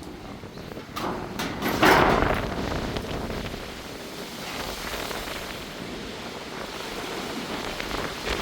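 Storm wind blowing in gusts and buffeting the microphone, with the loudest gust about two seconds in.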